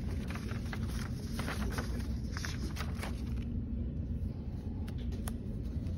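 Paper pages of a spiral-bound notebook being turned, rustling for the first few seconds, with a couple of light ticks near the end, over a steady low hum.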